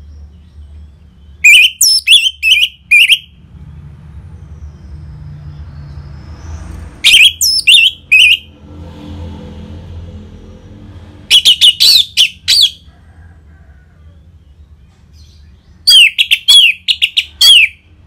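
Orange-headed thrush singing its loud, full song in four separate bursts of several clear, quickly sweeping whistled notes, each burst lasting one to two seconds, about four seconds apart.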